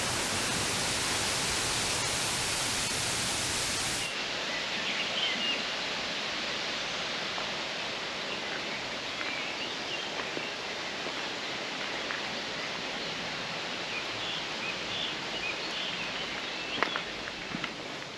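Steady roar of the 16-metre Šum waterfall for about four seconds, then an abrupt cut to a quieter steady rush with scattered bird chirps and a couple of light taps near the end.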